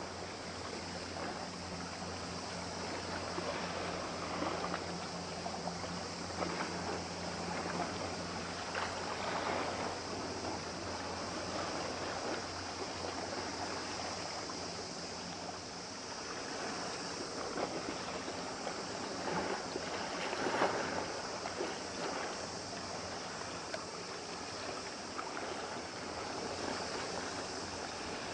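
Harbour ambience: water lapping and splashing with some wind on the microphone, over a low steady engine hum from a passing vessel that fades out about halfway through.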